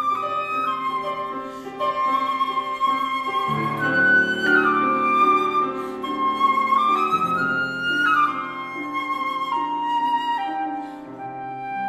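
Concert flute playing a slow melody of long held notes, with grand piano chords beneath; the piano's low notes come in fuller about a third of the way in.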